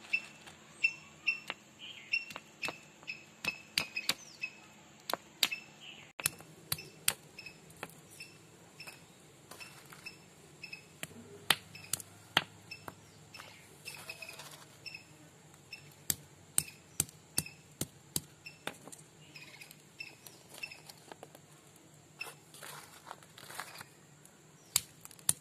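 Sharp knocks of a hand-held stone striking jackfruit seeds on a flat rock, crushing them. The knocks come about two a second for the first six seconds, then at irregular intervals.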